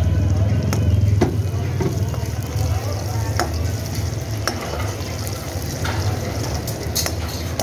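Chopped onions sizzling as they fry in hot oil in a deep pan, with a ladle stirring and scraping against the pan in several sharp clicks. A steady low rumble runs underneath.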